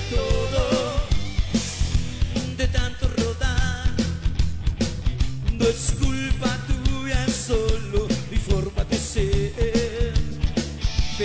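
A band playing a fast ska-rock song live, with a steady driving drumbeat and bass under a melody line.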